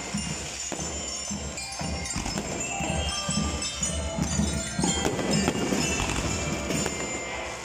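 Music playing, with the crackling and popping of aerial fireworks mixed in.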